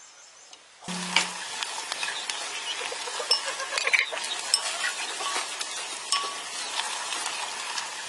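A wooden utensil stirring pieces of pig trotter in a pot of sizzling, bubbling liquid, with small scrapes and clicks against the pot. The sizzling comes in suddenly about a second in and then holds steady.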